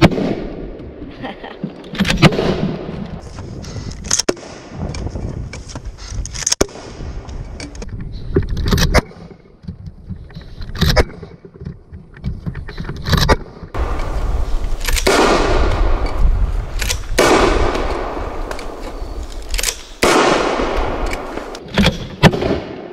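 Soda-can cannon firing blanks in a steady series of about ten shots, roughly one every two seconds, several of the later shots followed by about a second of rushing noise.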